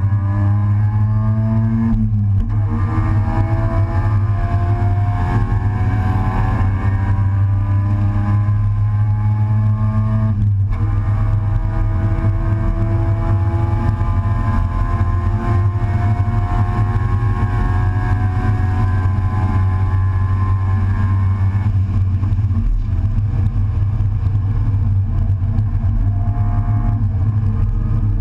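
Race car engine heard from inside the open, stripped cockpit, under hard acceleration with its pitch climbing steadily. It shifts up about two seconds in and again about ten seconds in, then climbs through a long pull. A constant low rumble of road and wind noise runs underneath.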